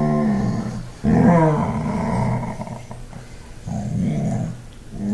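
Wheaten terrier vocalizing angrily in long growly complaints that bend in pitch, several in a row with short gaps between them; the loudest starts about a second in.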